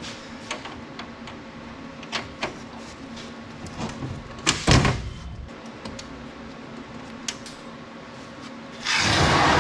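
Belt sander running steadily while a steel hinge pin is ground against the belt, with light knocks from handling the pin. There is a brief grind about halfway through and a louder, longer grind near the end.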